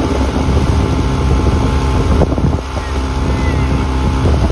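Motorboat engine running steadily while towing a board rider, with wind buffeting the microphone and water rushing in the wake.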